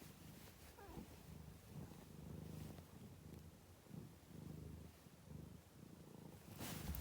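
A domestic cat purring softly, a low rumble that swells and fades about once a second with each breath. Just before the end a sudden louder noise breaks in.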